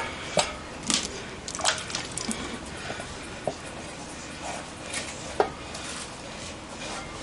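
An unlubricated tyre bead being worked off a motorcycle's front wheel rim by hand: irregular clicks, scrapes and rubber squeaks as the rubber drags over the rim.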